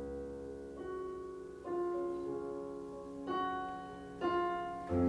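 Piano-voiced keyboard playing a slow introduction, a new sustained chord about every second, with a deep bass note coming in near the end.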